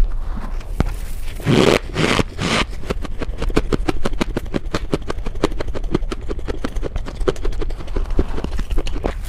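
Hands pressing and squeezing a heap of fluffy freezer frost, giving a rapid, dense crunchy crackle, with a few louder scraping swishes about two seconds in.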